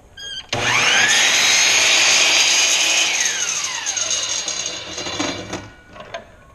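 Bosch sliding miter saw starting up, its whine rising quickly to full speed, crosscutting a short piece of wood, then released and spinning down with a falling whine.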